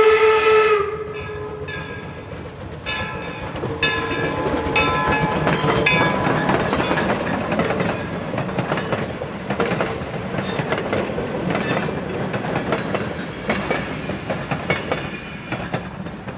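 Steam locomotive No. 17 "York", a replica of an 1860s design, ends a steady whistle blast about a second in, then passes close. Its train of coaches rolls by with wheels clicking over the rail joints, growing fainter near the end.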